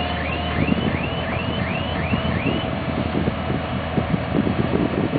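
Engine of a small blade grader running while it works loose dirt, with an irregular low clatter. A repeating electronic chirp, about three sweeps a second, stops about two and a half seconds in.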